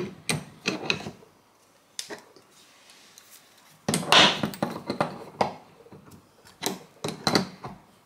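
Adjustable spanner clicking and scraping on a brass tap cartridge as it is tightened into a kitchen mixer tap: a few sharp metal clicks, a brief scrape about four seconds in, then more clicks.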